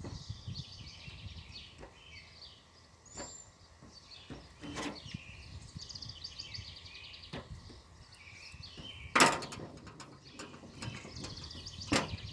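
Small birds chirping in the background, with a few sharp clicks and knocks of handling; the loudest comes about nine seconds in and another near the end.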